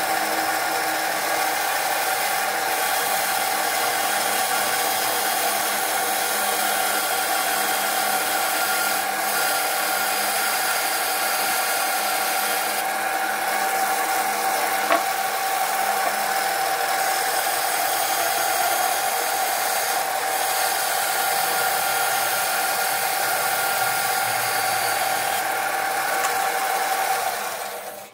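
Band saw running steadily while cutting a Douglas fir 4x4 block, a constant mechanical whir with a light rattle that cuts off suddenly near the end.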